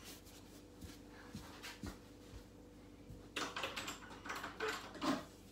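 A room door being opened: a short cluster of knocks and rattles in the last two seconds, loudest near the end, over a faint steady hum.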